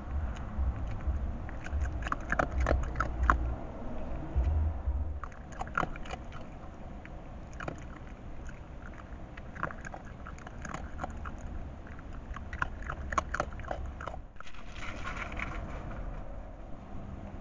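Red fox eating from a shallow dish: irregular crunching and biting clicks as it chews, which stop abruptly about 14 seconds in.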